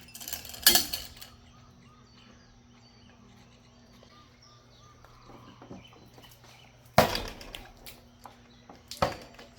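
A monkey banging a baseball bat against its enclosure: loud bangs with a short ring after each, one near the start, one about seven seconds in and one near the end.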